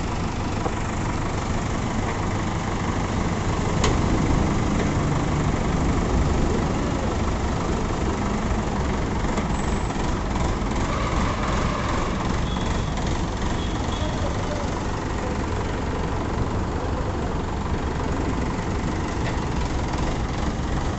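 Forklift engine running steadily as it lifts a heavy crated tractor off a truck bed, with one sharp click about four seconds in.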